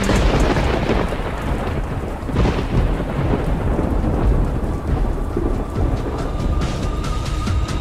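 Thunderstorm sound effect: heavy rain with rolling thunder, which starts abruptly and cracks loudly about two and a half seconds in. A faint steady high tone comes in about five seconds in.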